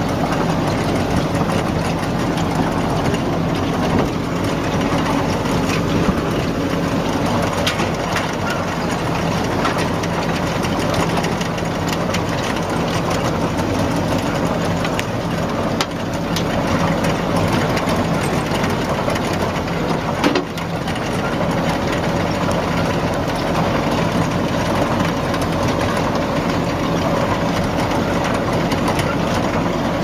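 A heavy machine engine running steadily with a low, even hum and a few sharp clicks and knocks over it; the sound dips briefly twice past the middle.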